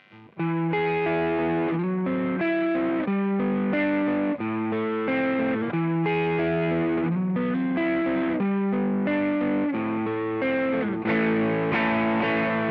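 Electric guitar played through a JOYO Vintage Overdrive pedal, a run of single notes with a lightly overdriven tone. It starts after a brief silence, and from about eleven seconds in it gets a little louder and brighter.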